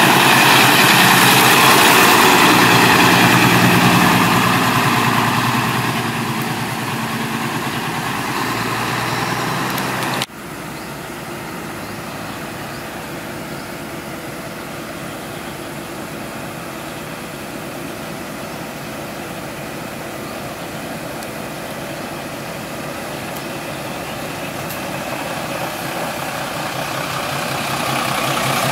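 Hino flatbed truck's diesel engine passing close by and fading away. After an abrupt cut about ten seconds in, a steady diesel engine idles, and an engine grows louder near the end as the truck draws near.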